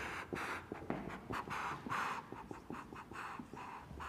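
Marker writing on a whiteboard: a run of short scratchy strokes with small ticks as the tip meets the board.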